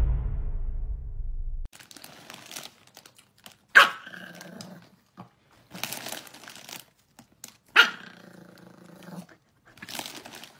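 Chihuahua giving two sharp barks, each trailing into a short growl, about four seconds apart, while a foil bag crinkles in between. A fading tail of music plays for the first second or two and then cuts off.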